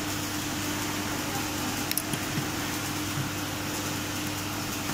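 Steady background hum over an even hiss, with one faint tick about two seconds in.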